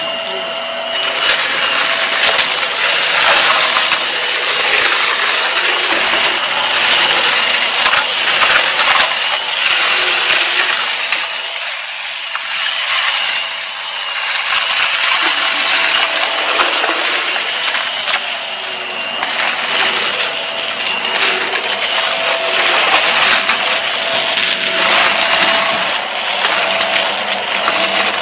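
Hart stick vacuum running with a steady motor whine while sucking up a pile of confetti-like debris from carpet, the pieces rattling and crunching through the head and into the bin in a dense, continuous crackle.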